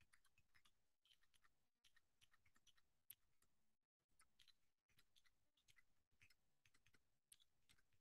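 Faint computer keyboard typing: quick, irregular runs of keystroke clicks broken by short pauses.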